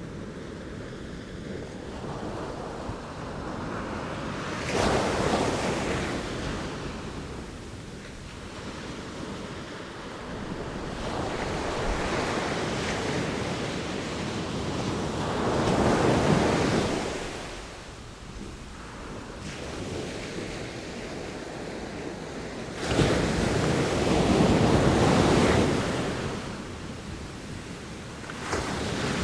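Ocean waves breaking and washing ashore, three big surges swelling and fading over the span, with wind on the microphone.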